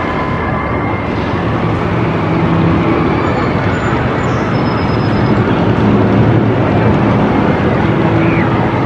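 Steel roller coaster train running along its track, a steady loud rumble of wheels on steel rails that swells a little midway.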